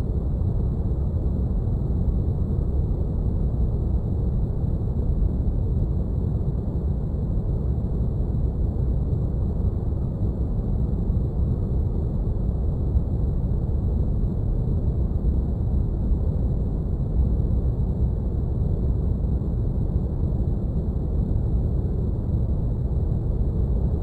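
Sci-fi spaceship cockpit ambience: a steady, deep rumbling drone like brown noise, unchanging throughout, with faint steady high-pitched tones above it.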